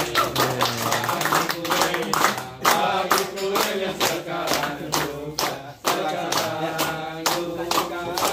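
A group of men singing together while clapping their hands in a steady rhythm.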